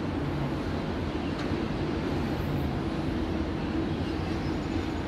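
Steady distant city traffic noise, an even, constant hum with no separate events standing out.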